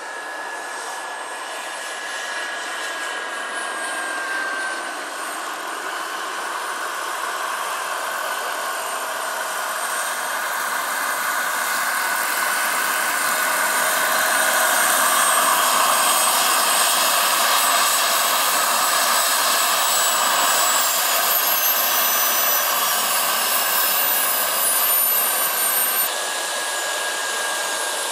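Turbine engines and coaxial rotors of 1/5-scale RC Kamov Ka-32 scale helicopters running, a steady high turbine whine with rotor noise that grows louder toward the middle. High whistling tones slide down in pitch about three-quarters of the way in, and the sound changes abruptly shortly before the end.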